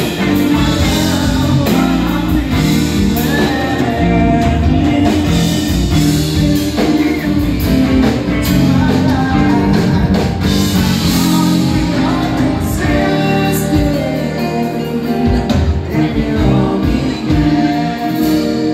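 Live band playing: a male lead vocal sung over electric guitar, bass guitar and drum kit.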